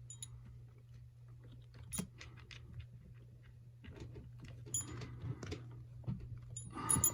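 Trick bolt puzzle being turned and fiddled in the hands: soft clicks and scrapes, with sharp clinks about two seconds in, near five seconds and near the end.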